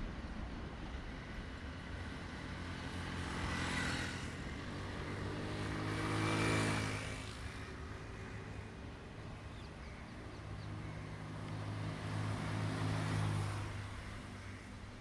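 Diesel train engine running with a steady low drone. It grows louder to a peak about six and a half seconds in, eases off, and swells again near the end.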